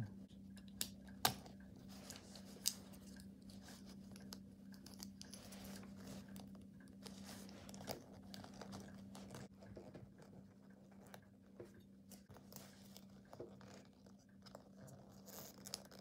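Faint scraping and a few sharp clicks of a small metal blade prying a Snap Circuits push-button switch's circuit board out of its plastic housing, over a steady low hum.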